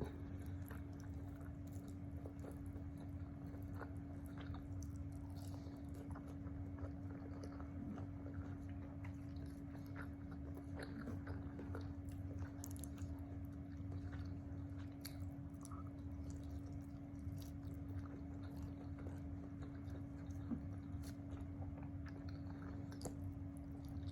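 A person chewing and biting food close to the microphone, with small wet smacks and clicks scattered throughout. Under it runs a steady background hum.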